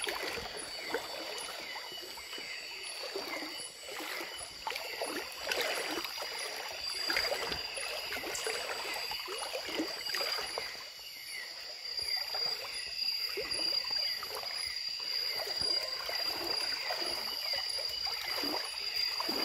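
Feet wading through shallow river water: an irregular run of splashes and sloshes as several people walk in the stream. A steady high-pitched tone runs beneath them.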